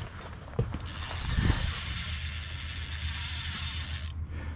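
Spinning reel cranked quickly to retrieve a lure, its gears and spinning rotor giving a steady whir that starts about a second in and cuts off sharply near the end. A couple of low thumps come early, over a low steady hum.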